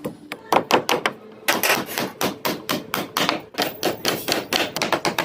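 Rapid, repeated hammer blows on a construction job, several strikes a second at uneven spacing.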